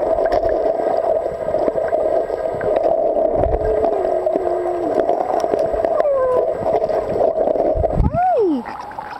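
Muffled underwater sound picked up by a submerged camera in a river: a steady hum with gurgling, bubbling water and scattered clicks. A few muffled sliding tones come through, the last a sharp rise and fall about eight seconds in, after which the level drops.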